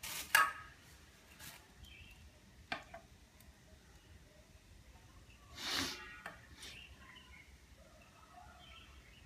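Sparse hard knocks and taps of hand tools on a ceramic floor tile as it is bedded and levelled: a sharp knock just after the start, the loudest, a few lighter taps, one with a short ring, and a brief scraping sound near the end.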